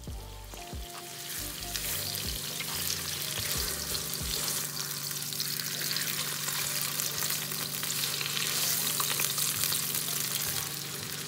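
Ground turkey sizzling steadily as it fries in a nonstick wok, the sizzle building over the first couple of seconds. A spatula knocks and scrapes against the pan a few times in the first four seconds as the meat is pressed and turned.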